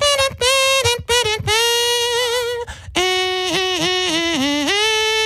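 A single high voice singing a melody: a few short notes, then long held notes broken by quick wavering runs, dipping lower about three seconds in and then rising back to a long held note.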